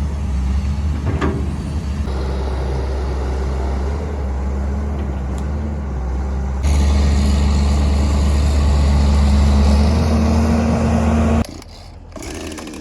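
Diesel engine of a John Deere 690D-LC excavator running steadily while it levels ground. It gets louder about seven seconds in as the machine works harder, then drops away suddenly near the end.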